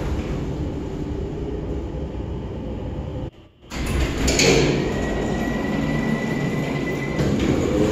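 Steady mechanical rumble, with a brief dropout a little over three seconds in and a thin high whine for a few seconds after it.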